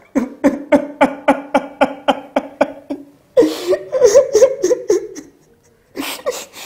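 A man's acted crying: quick rhythmic sobs, about four a second, then a long wavering wail and sharp gasping breaths near the end.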